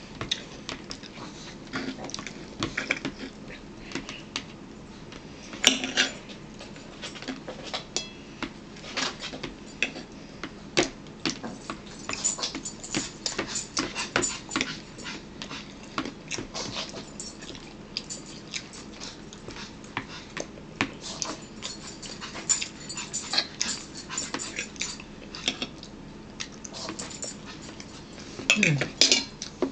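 Cutlery clicking and scraping: a metal spoon dipping into a plastic bowl of macaroni soup and a fork on a plate, many small taps throughout, with a louder knock about six seconds in. A short falling sound comes near the end.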